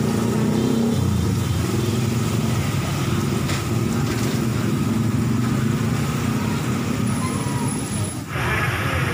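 Steady low rumble of motor vehicle engines, with a sudden change in the sound shortly before the end.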